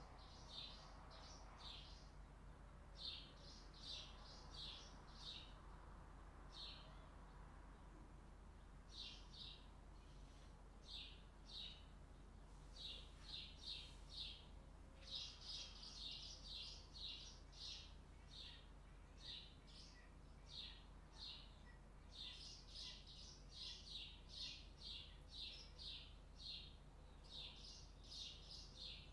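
Faint bird chirping: short high chirps in quick runs of three to six, repeating over and over.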